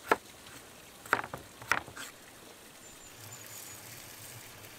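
Three light knocks or taps in the first two seconds, the first and loudest right at the start, the other two about half a second apart.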